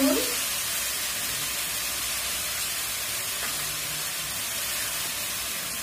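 Pumpkin greens frying in hot oil in a kadai: a steady sizzling hiss.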